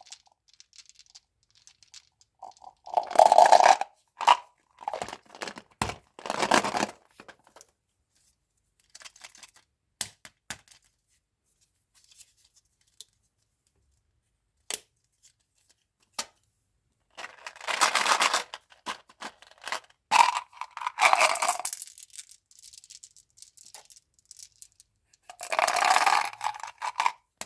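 Plastic candy wrappers being torn open and crinkled in several loud bursts of a second or two, with small clicks and taps between them.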